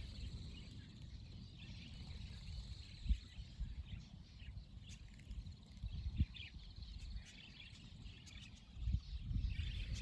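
A large flock of budgerigars chattering in many high chirps as they fly overhead, over a low rumble.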